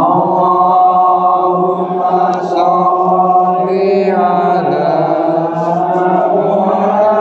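Men's voices chanting an Islamic devotional chant in long, slowly gliding held notes, with a new phrase starting a little past halfway.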